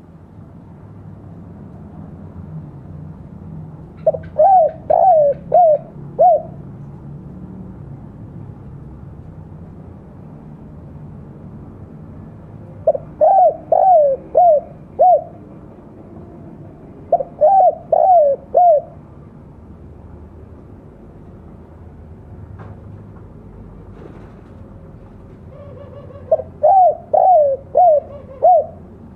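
Spotted dove (tekukur) cooing in its 'kuk dua' call: four phrases, each a quick run of four or five coos, with pauses of several seconds between them.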